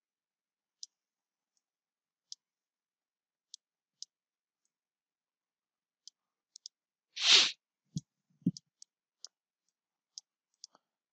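Computer mouse clicking: single sharp clicks spaced about a second apart. About seven seconds in there is a short puff of noise, the loudest sound here, followed by two low thumps.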